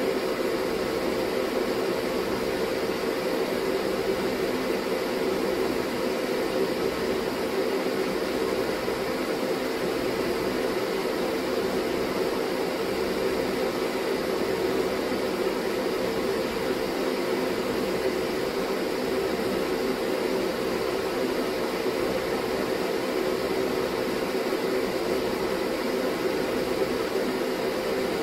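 Ventilation system fan running steadily: an even rush of air with a constant hum.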